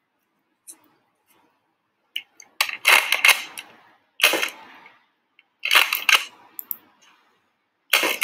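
Nerf pump-action shotgun blaster being racked and fired: four bursts of loud, sharp plastic clacks about a second and a half apart, each trailing off briefly.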